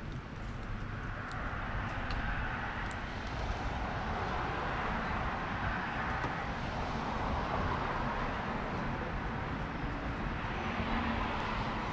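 Rushing drone of a distant passing engine, swelling slowly over several seconds over a low rumble, with a few faint taps in the first few seconds.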